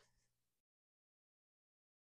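Near silence: a faint low room hum for the first half second, then the sound cuts off to complete silence.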